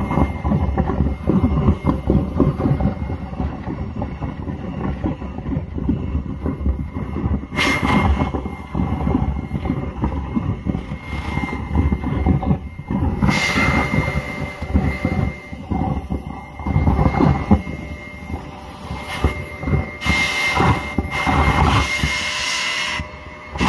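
A small handheld vacuum running as its nozzle sucks wet Orbeez water beads and water out of a steel bowl. Its motor gives a steady faint whine over a dense, continuous rattle and slurp of beads, with brief hissy surges now and then.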